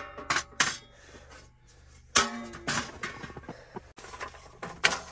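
Sheet-metal panels of a homemade portable tent stove clanking against each other as they are handled and fitted together: about five sharp knocks, some with a brief metallic ring, with handling rustle between.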